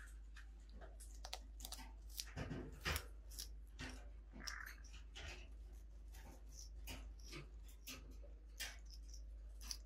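Yellow-crowned Amazon parrot biting and chewing a piece of green plant stalk held in its foot: irregular crunching bites and clicks, loudest about three seconds in.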